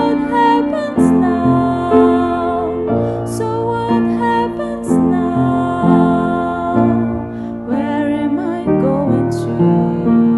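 A woman singing a slow, tender ballad with vibrato over piano accompaniment.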